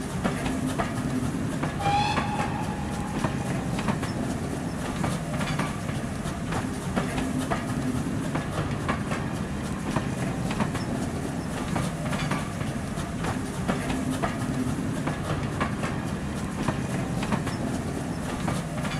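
Model railway train running past, with a continuous rolling hum and steady clicking of its wheels over the rail joints. A brief squeal comes about two seconds in.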